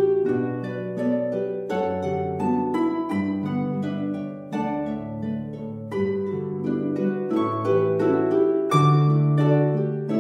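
Instrumental background music: a steady flow of notes that start sharply and fade, over held low notes.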